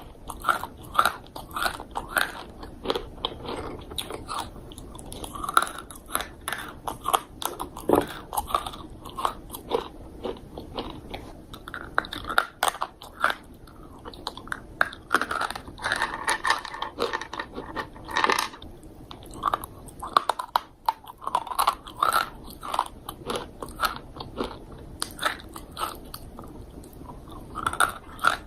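A person biting and chewing crunchy dry fruit, with a continuous run of sharp, irregular crunches.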